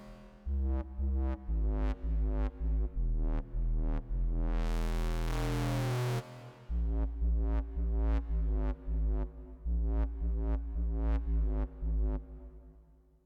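Electronic music played on hardware: a programmed drum beat from an MPC One sampler over deep synthesizer bass and chords. A rising noise sweep swells about halfway through, and the track then fades out near the end.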